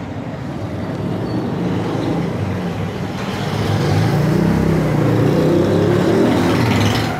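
A motor vehicle's engine running, growing louder over the first few seconds and easing off near the end.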